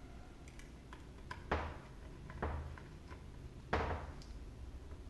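Airsoft gearbox parts and tools being handled and set down: two sharp clacks, about a second and a half and nearly four seconds in, with a softer knock between them and a few light clicks.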